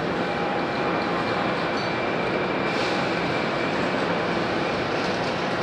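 Boeing 767-300ER's twin jet engines at takeoff thrust during the takeoff roll: a loud, steady rushing roar with a faint high whine running through it.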